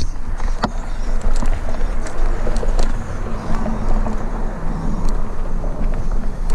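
Heavy wind rumble on an action-camera microphone while moving over a dirt track, with scattered clicks and crunches from the ground and handling.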